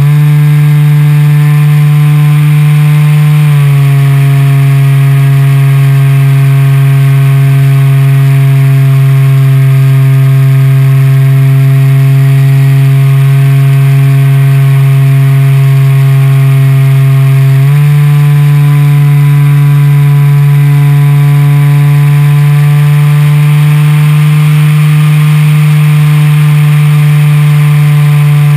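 The electric motor and propeller of a Parkzone Extra 300 RC plane, heard from on board in flight: a loud, steady drone. It drops to a lower pitch a few seconds in as the motor slows, then climbs back up about two-thirds of the way through.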